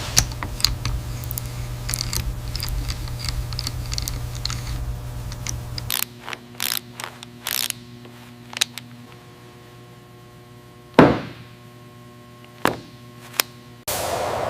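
A low steady hum with scattered clicks and clanks cuts off abruptly about six seconds in. Faint steady tones and sparse knocks follow, with one loud heavy thunk that rings on briefly about eleven seconds in.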